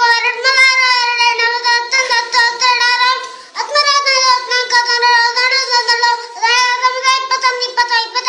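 A boy singing loudly in a high voice, holding long, slightly wavering notes, with short breaths about three and a half and six seconds in.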